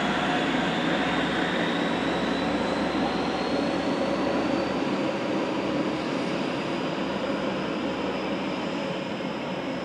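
High Speed Train's two Class 43 diesel power cars working hard as the train pulls away, a high whistle over the engine noise rising slowly in pitch while the whole sound slowly fades.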